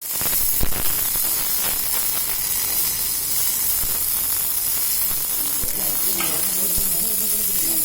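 Electric arc welding on a borewell drill rod: a steady crackling sizzle from the arc, with a few sharp pops.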